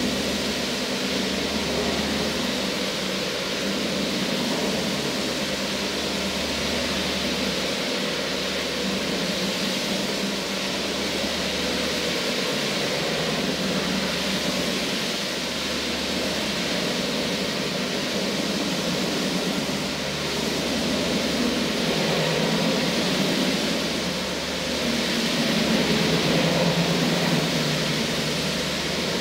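Marble floor grinding machine running steadily as it grinds the floor: a constant grinding hiss over the motor's low hum, which swells and fades every second or two.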